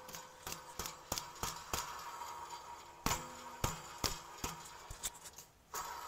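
The rear wheel hub of a 2001 BMW E46 is turned by hand, and its worn wheel bearing makes a rough, noisy grind with regular clicks about three times a second. The bearing is bad.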